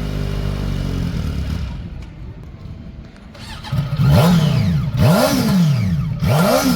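Motorcycle engine being revved in place: the engine settles back toward idle, then three quick throttle blips follow about a second apart, each rising and falling in pitch.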